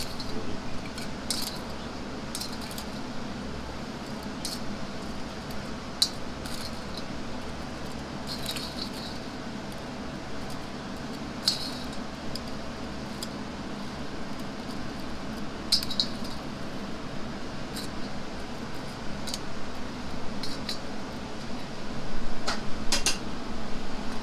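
Light metallic clinks and taps, a dozen or so at irregular intervals and busier near the end, as fried chicken pieces are lifted from a perforated steel strainer and laid on a ceramic plate. A steady low hum runs underneath.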